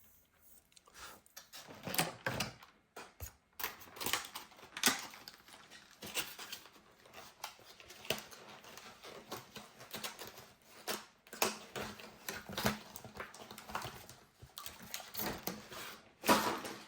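Irregular scraping, rubbing and clicking as the battery bay of a MacBook Pro A1502 is cleaned out by hand to make way for a new battery. The strokes come in uneven bursts, with the loudest around two seconds in, four to five seconds in, and just before the end.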